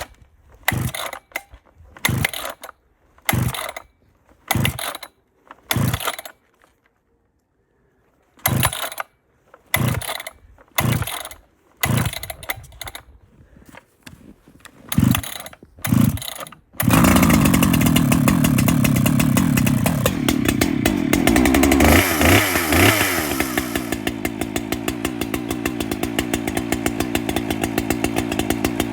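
Husqvarna 395 two-stroke chainsaw being cold-started: about a dozen pulls of the starter cord, with a short pause partway, before the big high-compression engine catches about 17 seconds in. It then runs loud, revs up, and settles to an even, pulsing idle.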